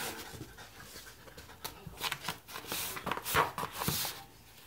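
A Shiba Inu pawing and scrabbling under a low shelf for a toy she cannot reach: irregular bursts of claws scratching and scraping on the floor mats, busiest around three seconds in.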